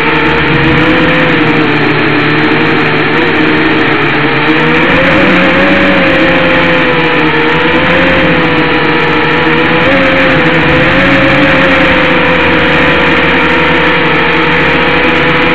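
JD168 quadcopter's four small electric motors and propellers whining steadily, picked up close by its own onboard camera's microphone; the pitch wavers up and down as the throttle changes.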